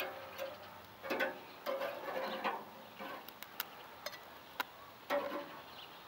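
Irregular light clicks and short clattering knocks of plates and kitchen utensils being handled while burgers are assembled, about a dozen scattered sounds.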